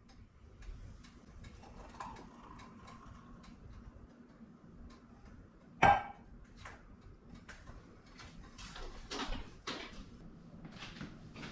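Kitchen clatter of dishes and utensils: light clinks and knocks scattered throughout, with one much louder clunk about six seconds in.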